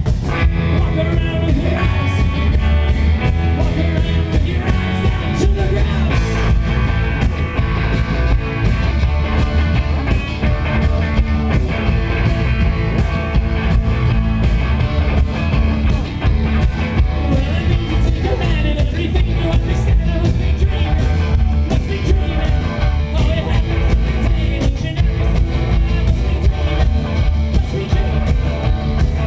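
Indie rock band playing live through a PA: electric guitars, bass and drum kit, with singing.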